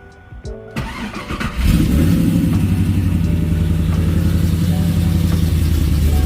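A new gear-reduction starter on a supercharged LS1 V8 Camaro Z28 cranks the engine for under a second. The engine catches and then runs loud and steady, showing the new starter works.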